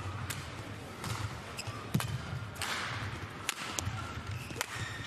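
Badminton rally: several sharp racket strikes on the shuttlecock, roughly one every second, with a few short squeaks, over the low hum of a large hall.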